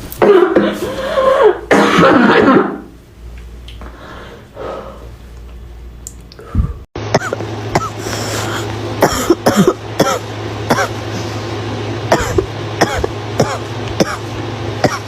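A girl's barking cough: a loud fit of harsh coughs in the first three seconds. After a sudden cut, a long run of short, sharp coughs follows over a steady low hum.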